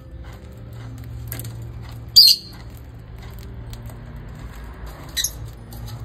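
Peach-faced lovebirds cracking seed in a feed bowl: a scatter of small sharp clicks throughout. One loud, shrill chirp comes about two seconds in and a shorter one near the end.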